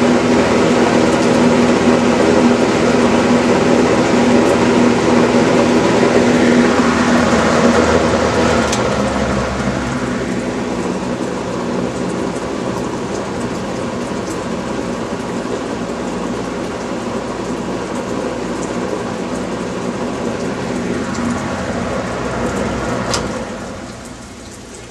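McGraw-Edison model 204001B two-speed box fan running freshly cleaned and re-lubricated: a steady rush of air over a motor hum. A switch click about nine seconds in is followed by the sound easing down to a lower speed, and another click near the end brings a sharp drop as the fan is switched off and winds down.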